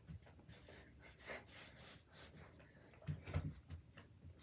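Faint sounds of a person moving while demonstrating dance arm moves: light rustles and a short cluster of dull low thumps a little after three seconds in.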